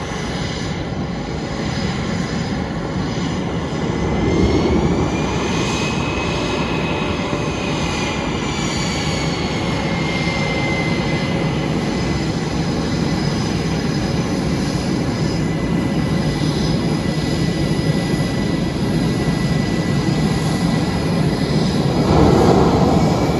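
F/A-18 Hornet jets' twin turbofan engines running loud and steady. A high whine bends up and then falls away between about 4 and 11 seconds in, and the noise swells again near the end.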